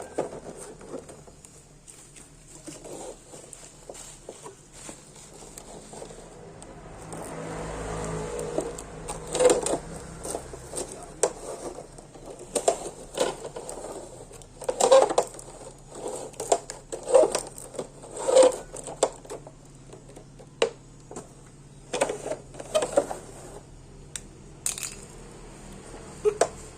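Hard plastic parts of an action figure being handled: irregular clicks, taps and knocks, with a brief swell of hissy rustling about eight seconds in.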